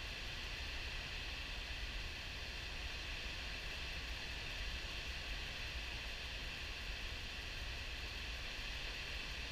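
Steady rushing of river water spilling over a diversion dam's spillway at high flow and churning in the white water below, with a low rumble underneath.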